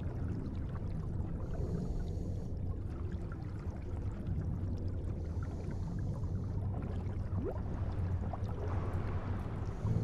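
Muffled, rumbling water ambience, like a swimming pool heard underwater, with scattered small bubbly ticks and one short rising glide about three quarters of the way through.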